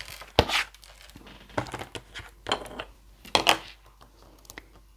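Plastic crinkling and clicking as a clear plastic stamp case and its stamp sheet are handled and a red rubber stamp is taken out and set on an acrylic stamping block. There is a sharp click about half a second in, then several short rustles.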